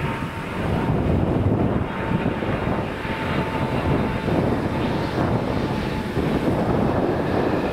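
Airbus A310-200's twin turbofan engines running on final approach: a steady jet rumble with a faint thin whine that comes and goes in the first few seconds.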